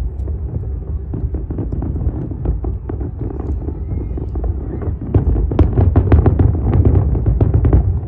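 Distant New Year fireworks display: many aerial shells bursting in quick succession over a low, continuous rumble. The bursts grow louder and denser about five seconds in.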